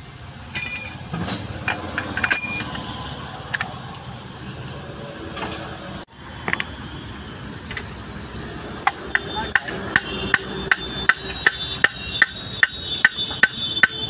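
Hammer striking steel parts of a Swaraj Mazda truck gearbox during assembly: scattered tool clinks at first, then from about two-thirds in a run of quick metal-on-metal taps, roughly three a second, each with a ringing note.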